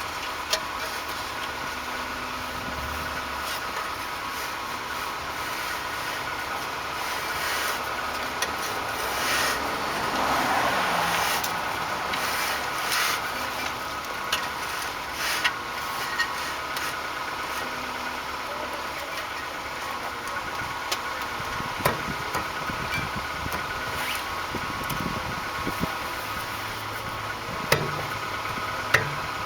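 A steady mechanical hum runs throughout, with scattered sharp clicks and knocks of tools on metal during brake work, more of them near the end.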